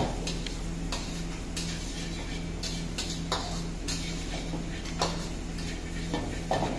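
Metal spatula clinking and scraping against a steel wok as noodles are stir-fried, in irregular strokes, over a steady low hum.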